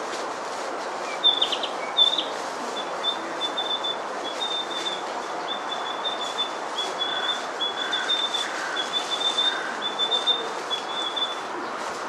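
Male narcissus flycatcher singing softly: a long run of short, high notes at an even pitch, opening with two louder sharp notes, with a few lower notes mixed in midway. A steady background rumble runs underneath.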